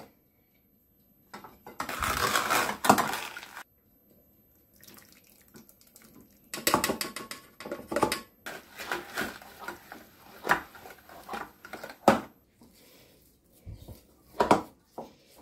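Cooked chestnuts in milk being spooned and poured from a steel pot into a metal food mill: wet sloshing, then a series of metal clinks, knocks and scrapes of utensils against the pot and mill.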